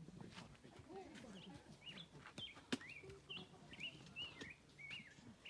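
A small songbird chirping faintly, a series of short up-and-down notes repeated about twice a second, with a few soft clicks.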